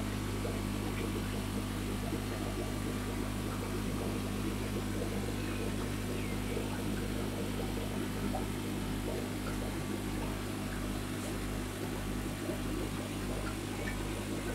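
Steady electric hum of aquarium pumps and filtration equipment. About halfway through, the lowest part of the hum begins to pulse about twice a second.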